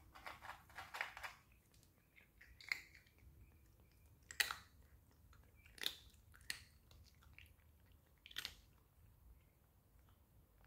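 A cat chewing food close up: a quick run of crunches in the first second or so, then single sharp crunches every second or two.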